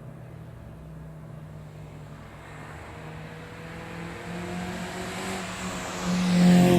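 Toyota Yaris hatchback's engine pulling under acceleration, its note slowly rising in pitch and growing louder, jumping louder about six seconds in.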